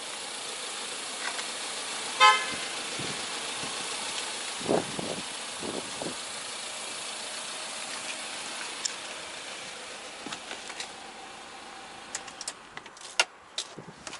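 A single short car horn toot about two seconds in, the loudest sound, over steady street noise. A few sharp clicks come near the end.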